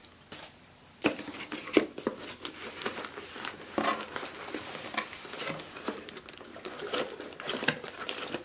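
Hands handling a cardboard product box, folding back its flaps and working at the inner tray. Scattered rustles, scrapes and small knocks start about a second in.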